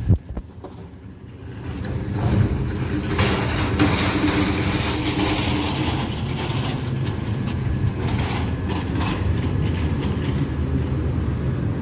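Steel front-load dumpster rattling on its casters as it is rolled across asphalt, over the steady running of an idling natural-gas Autocar Xpeditor garbage truck. It starts quietly and grows louder after about two seconds.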